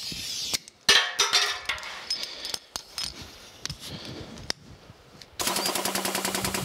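A short burst of compressed air hissing from a blow gun, then clicks and knocks of handling. About five seconds in, the air pump of an air-over-hydraulic jack starts with a steady, rapid pulsing, driving the jack to press a cast iron valve sleeve out of the cylinder.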